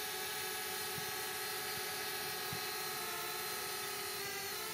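Flitt foldable selfie drone's motors and propellers whining steadily, several tones at once, the pitch shifting briefly near the end as the drone manoeuvres.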